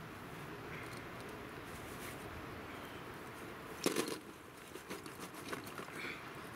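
A bag of roasted peanuts crinkling as it is pulled out of a cloth sack and handled. One loud rustle comes about four seconds in, followed by light scattered crinkles.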